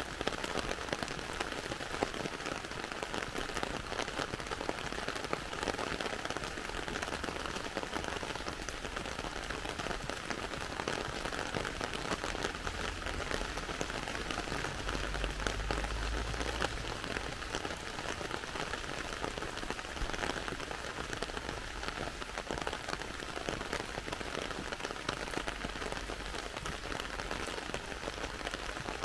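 Heavy rain falling on a wet road and pavement: a steady, dense hiss of many small drop impacts. A low rumble swells and fades about halfway through.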